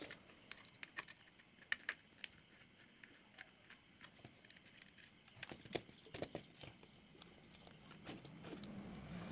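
Faint scattered clicks and taps from a screwdriver and wires being worked on the terminals of a plastic switch-and-socket board, a few about two seconds in and a cluster around six seconds in. Behind them, a steady high cricket trill with short chirps repeating about every second and a half.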